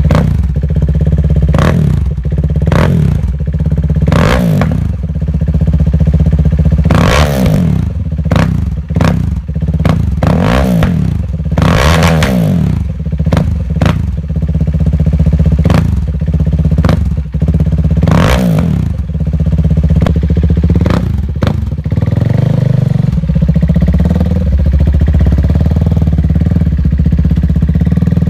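KTM Duke 390's single-cylinder engine through a Mivv slip-on exhaust, revved in about a dozen quick throttle blips that each rise and drop back to idle. Near the end it settles into a steady low-rev run.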